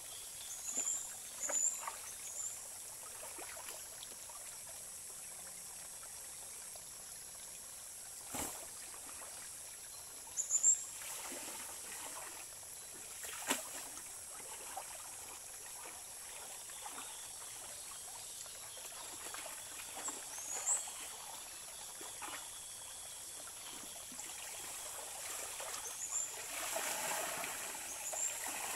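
Shallow stream trickling steadily over stones, with occasional splashes and slaps of wet laundry being washed by hand. Near the end comes a longer stretch of splashing and pouring as the soaked cloth is lifted and water streams off it.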